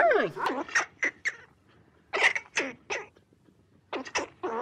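A giant panda's wavering, warbling bleat trails off at the very start. It is followed by three quick groups of short, high squeaky calls with near silence between them.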